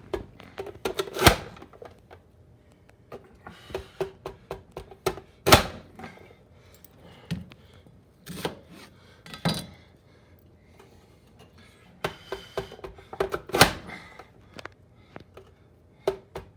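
An onion being cut up on a cutting board: runs of quick, sharp knife taps with a louder single knock every few seconds.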